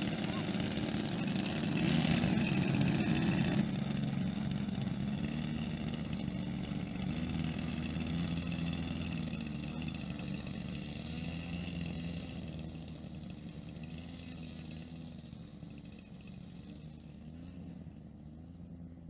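Twin piston engines of a large RC B-25 Mitchell model running at idle and taxiing, the two engines' slightly wavering pitches not quite matched, since the engines are out of sync. Briefly louder about two seconds in, then fading steadily as the plane moves away.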